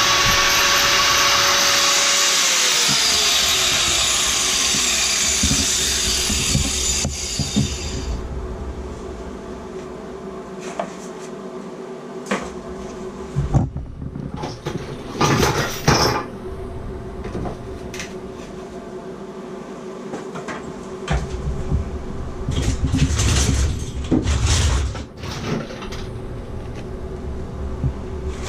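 Power saw cutting into a tiled shower wall, its motor note dropping as it winds down about three seconds in. Then scattered knocks, clicks and scrapes.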